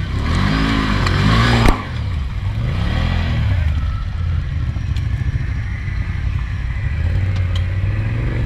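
Off-road ATV and side-by-side engines revving in mud, their pitch rising and falling several times in the first few seconds, then running steadily. A loud rushing burst builds and cuts off sharply just under two seconds in.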